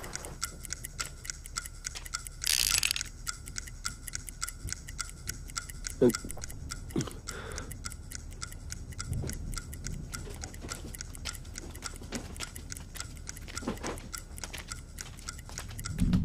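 Steady, fast clock ticking, with a short burst of hiss about two and a half seconds in and a few faint knocks.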